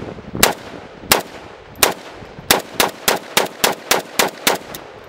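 Romanian CGR AK-47 semi-automatic rifle firing 7.62×39 rounds. Three shots come well apart, then a quicker string of about eight shots at roughly three a second.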